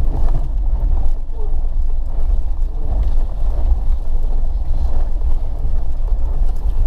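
Car engine and tyre noise heard inside the cabin on a rough, muddy dirt road: a steady low rumble.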